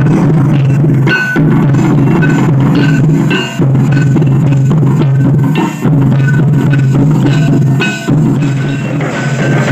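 Traditional Santali barrel drums played together in a dense, driving rhythm, over a sustained low tone. The pattern repeats and breaks off briefly about every two seconds.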